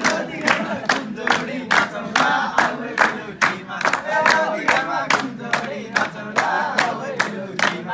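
A group of men singing a Nepali dohori verse together to a steady hand-clapped beat of about three claps a second.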